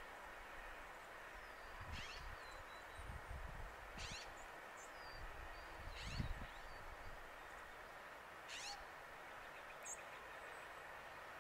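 An animal calling outdoors: short, high calls that fall in pitch, about every two seconds, over a faint steady hiss, with a few low thumps among the first calls.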